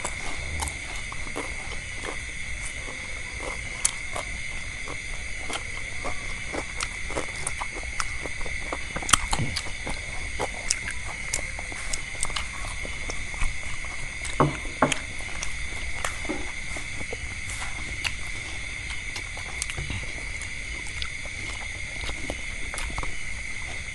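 Eating sounds: chewing of fried meatballs and vegetables, with many scattered small clicks and knocks, over a steady high-pitched background whine.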